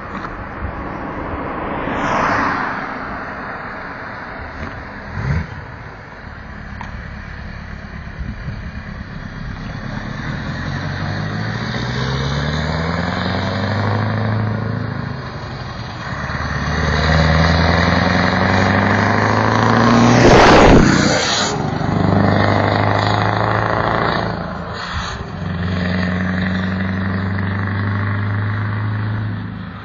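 Scania R164 480 truck's 16-litre V8 diesel pulling away and accelerating through several gears: the engine note climbs, drops back at each shift, and climbs again. A loud rush of noise comes about two-thirds of the way through.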